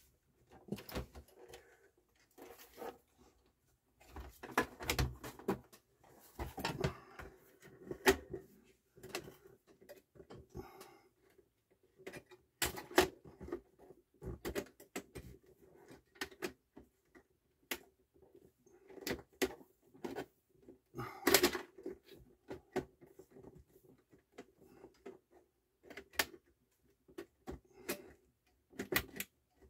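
Handling noise from a CD changer's plastic faceplate and sheet-metal chassis being fitted and turned over on a bench: irregular clicks, knocks and light rattles, with a few louder knocks scattered through.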